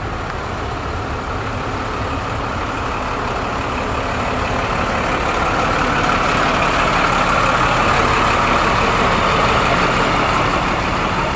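Engine of a custom vintage dual-rear-wheel pickup with a chrome stack exhaust, running steadily as the truck rolls slowly past. It grows louder as the truck comes close, peaking about two thirds of the way through, then eases slightly.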